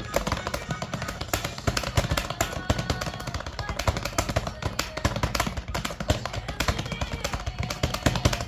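Fast typing on a computer keyboard: an unbroken stream of rapid key clicks, with faint music or a voice behind it.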